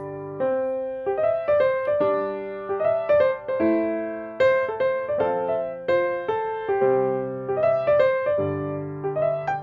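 Background music: a soft piano melody over chords, each note struck and left to fade, a few notes a second.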